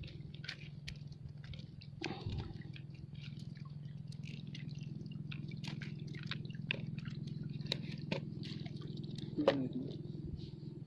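Light dripping and small wet clicks and ticks scattered over a steady low hum, with one louder click about nine and a half seconds in.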